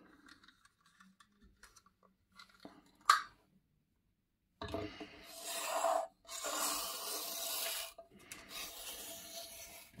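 Circle cutter being turned around on paper, its blade scraping through the sheet in three long rubbing strokes from about halfway in, the last one fainter. A single sharp click comes a little before.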